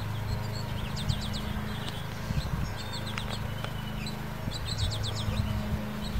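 A songbird singing short phrases of quick, high chirps, about a second in and again near the five-second mark, over a steady low rumble.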